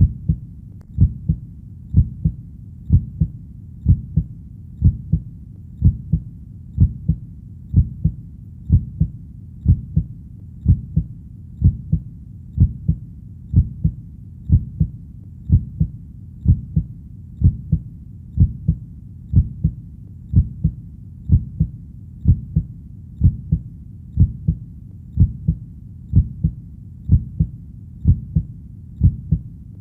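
A heartbeat: a low double thump, lub-dub, repeating steadily at about one beat a second.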